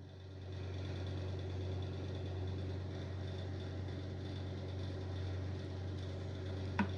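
A steady low mechanical hum, with one short click near the end.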